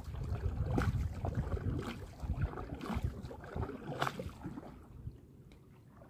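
A canoe moving on a river: water sloshing against the hull under low wind rumble on the microphone. A short sharp splash comes about once a second for the first four seconds, and the sound dies down near the end.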